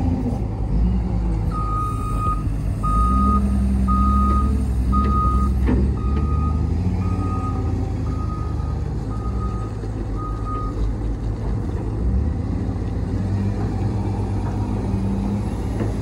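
Caterpillar 930H wheel loader's diesel engine running as the machine reverses, its backup alarm sounding about nine steady beeps, one a second, then stopping about eleven seconds in while the engine carries on. The engine swells in the first half as the loader moves off.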